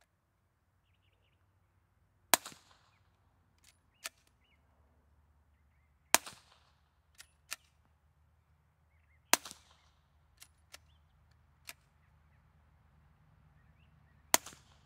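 Four suppressed 9mm pistol shots, subsonic 147-grain ammunition through a wet Bowers ASP45 suppressor, each a sharp crack with a short tail, several seconds apart. Quieter clicks fall between the shots. The slide does not cycle on this low-powered ammunition.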